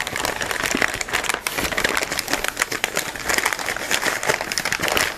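Packing material crinkling and rustling as hands dig through a shipping box and pull out an item, with a continuous run of small crackles.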